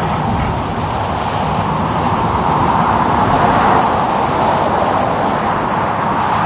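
Roadside traffic passing: a steady rush of tyre and engine noise from cars and trucks, swelling slightly a few seconds in.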